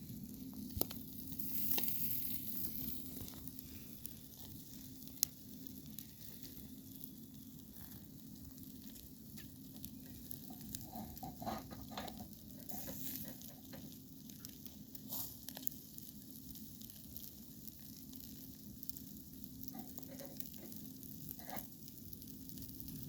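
Chicken sekuwa sizzling steadily as it cooks, with a few sharp clicks and ticks here and there and a faint low hum underneath.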